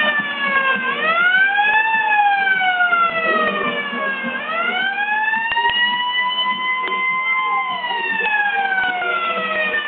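A wailing siren, its pitch sliding slowly up and down: it rises in about a second, falls over the next two, rises again and holds high for a couple of seconds, then slides down through the last two seconds.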